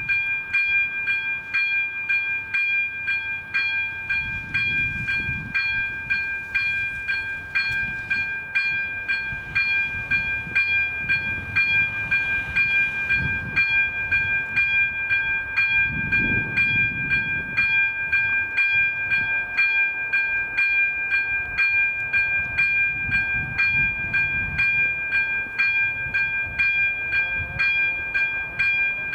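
Level crossing warning bell starting up and ringing steadily, about two strikes a second, with a low rumble coming and going underneath.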